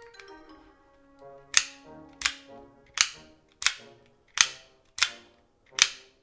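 Out-the-front automatic switchblade firing its blade out and snapping it back over and over: seven sharp clicks about three-quarters of a second apart, starting about a second and a half in. Music plays faintly underneath.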